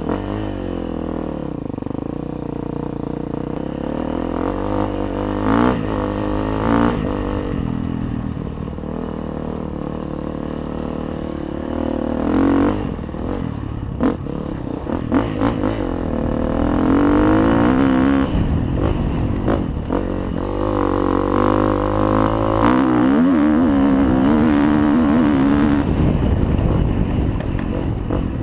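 KTM dirt bike engine revving up and down through the gears while riding off-road, heard from a helmet-mounted camera. Several sharp knocks come through in the first half, some close together.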